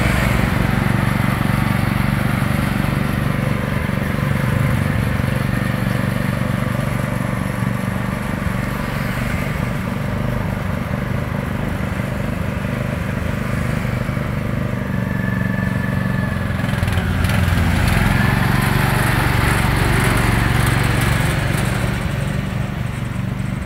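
Small Kubota petrol engine of a four-wheel-drive mini dumper cart running steadily while the cart is driven, with motorbikes passing on the road.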